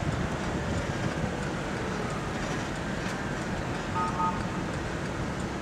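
Road and engine noise from inside a moving car in slowing highway traffic, with wind on the microphone; the engine note falls gently early on. Two short beeps come about four seconds in.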